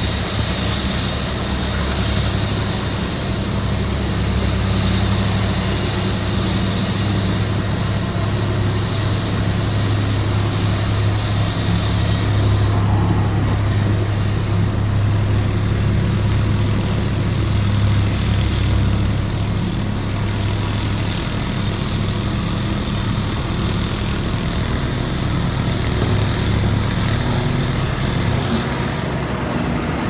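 Diesel engines of asphalt paving machinery, a pneumatic-tyred road roller and a tracked paver, running with a steady low hum. A high hiss over the engines stops abruptly about twelve seconds in.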